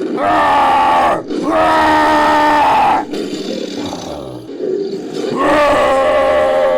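Creature roar sound effect built from big-cat roars and a human voice: three long pitched roars, the last gliding down in pitch at its end, with lower growling between the second and third.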